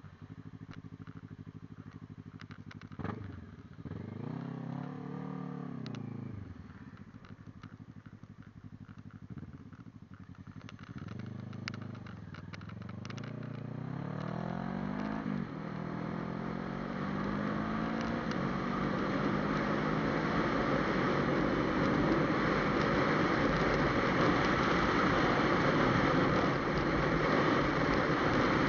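Motorcycle engine idling, then pulling away with the engine note rising as it accelerates about three seconds in and again around eleven seconds. After that it settles into a steady run at speed while wind and road noise build steadily louder.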